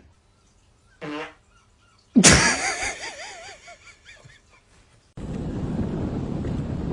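A dog's short pitched vocal sound, then a sudden loud sound that trails off into a wavering whine over about two seconds. From about five seconds in, a steady rushing noise like wind takes over.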